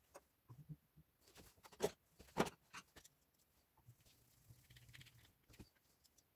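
Small metal clicks and knocks from handling the breast drill's gearbox cover as it is fitted over the gears, with two sharper clicks about two seconds in. Then a faint scraping as a screwdriver turns one of the cover screws.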